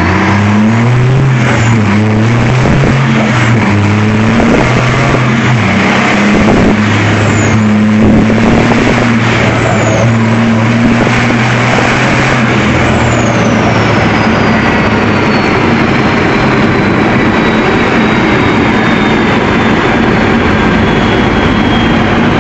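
Racing engine sound played loudly over speakers with onboard lap footage, the revs rising and dropping in steps with each gear change. A thin high whistle slowly falls in pitch through the second half.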